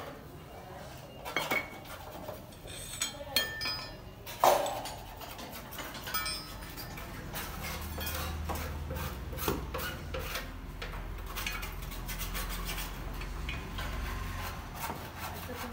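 Steel hand tools and scooter front-suspension (shock absorber) parts clinking and scraping against each other, with one ringing clink about four and a half seconds in, then a long run of quick metallic clicks.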